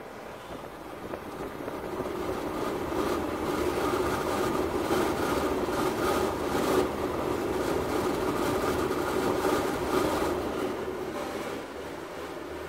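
Broan Ultra series bathroom exhaust fan running: the steady whir of its motor and moving air grows louder over the first few seconds, holds, then eases off a little near the end.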